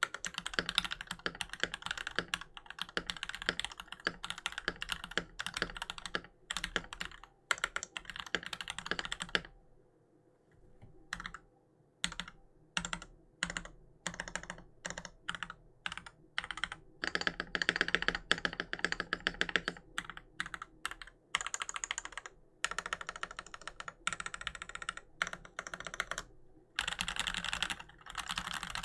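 Keys of a Keychron V1 mechanical keyboard being typed on. It has lubed JWICK Black linear switches, a steel plate and PBT keycaps. Fast continuous typing stops after about nine seconds. After a short pause, single keys are pressed one at a time, the modifier keys, with a few quicker runs of strokes.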